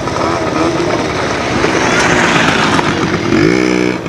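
Motocross motorcycle engines running, with one revving up in a rising pitch near the end.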